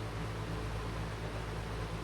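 Electric wall fan running steadily: an even rush of moving air over a low motor hum.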